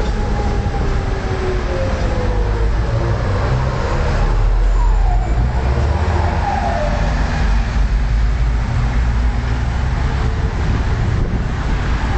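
Steady rumble of city street traffic, with a tram passing on the tracks below at first. A few brief gliding tones sound over the rumble, the clearest around the middle.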